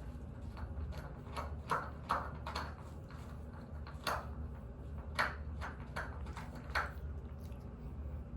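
Light clicks and rustles, about eight spread over several seconds, over a steady low hum.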